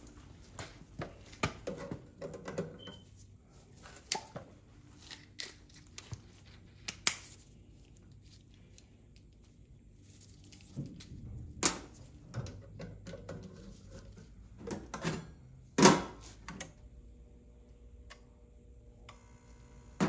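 Scattered clicks, taps and knocks of tools and metal parts being handled while working on an oil-fired boiler's controls, irregular and sparse, with the sharpest knock about 16 seconds in.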